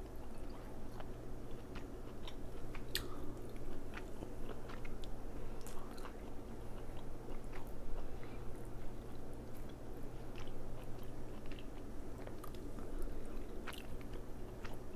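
Close-up chewing of crab meat, wet mouth sounds broken by scattered small clicks, over a steady low background hum.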